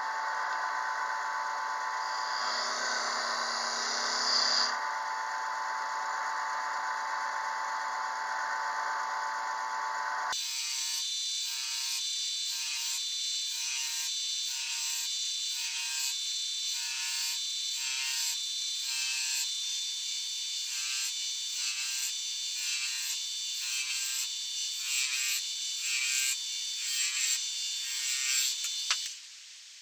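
Harbor Freight wood lathe running with a turning tool cutting into a spinning cherry spindle. About a third of the way in, the sound changes to a run of short, evenly repeated cutting strokes, about one a second, as a row of grooves is cut along the spindle. The strokes stop just before the end.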